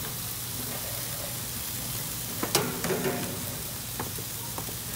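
Marinated chicken pieces sizzling on the hot grates of a gas barbecue grill, a steady hiss. Metal tongs click sharply against the grate about two and a half seconds in, with smaller clicks after and another near the end, as pieces are set down.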